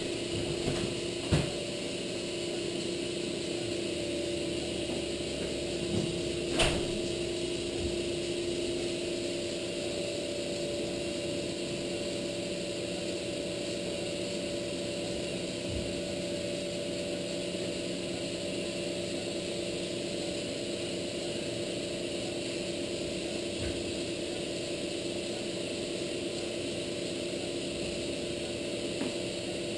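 Steady hum of operating-room equipment holding two constant tones, with a few faint knocks near the start and one sharp click about six and a half seconds in.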